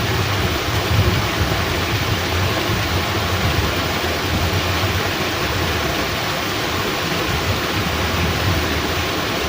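Heavy rain falling steadily, mixed with water rushing through a fish-pond sluice gate, with a low rumble underneath.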